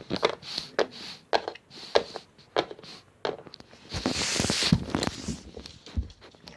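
Plastic toy figures and playset pieces being handled: a run of small clicks and taps, with a louder rustle about four seconds in and a couple of soft thumps.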